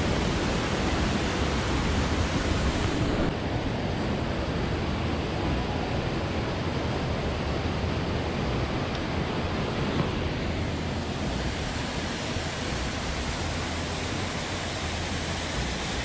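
Steady rushing of a mountain stream and small waterfall. The hiss loses its highest part about three seconds in, then runs on evenly.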